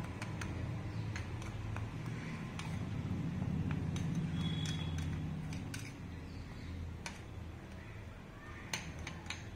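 Metal spoon stirring cocoa powder and powdered sugar in a small plastic bowl: scattered light clicks and scrapes of the spoon against the bowl, a few sharper ones near the end. A steady low hum runs underneath.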